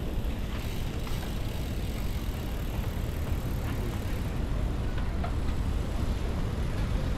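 Steady low rumble of wind on the microphone and tyres on the road while riding a bicycle among a group of cyclists, with a few faint clicks.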